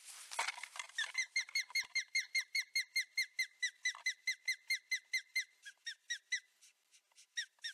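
Female osprey giving a rapid series of short, high whistled alarm calls, about five or six a second, thinning out briefly near the end: agitated alarm calling after her chick was taken from the nest. A short rustling noise opens it.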